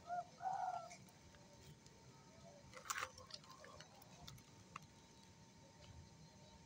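Faint snapping and rustling as green chilli pods are picked off the plant by hand, with one sharp snap about three seconds in. A brief bird call sounds near the start.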